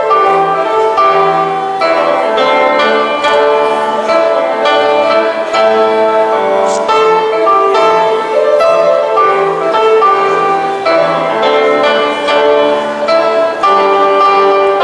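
Violin playing a melody over accompaniment, an instrumental break in which the singers are silent, with the notes changing about every half second.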